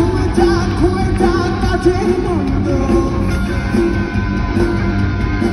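Live rock band playing an unplugged set: guitars carrying a melodic line over a steady bass and rhythm, with no lyrics sung.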